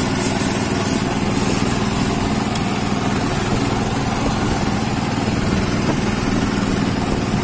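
Small engine running steadily on a boat, an unbroken hum, with sea water splashing and rushing against the hull.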